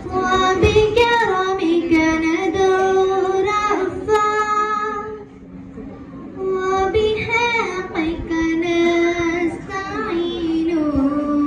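A group of girls singing an Arabic song into a microphone without instruments, in long held melodic phrases, with a short break about five seconds in before the next phrase starts.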